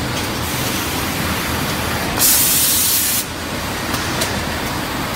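Automatic forging line running with a steady machine drone, broken a little after two seconds in by a loud hiss of compressed air lasting about a second, such as a die blow-off or spray at the forging press. Two light clicks follow about a second later.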